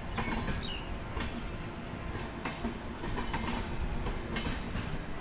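A departing passenger train's coaches rolling past, a steady low rumble with irregular clicks of wheels over rail joints. The train's end-on-generation power car goes by near the end.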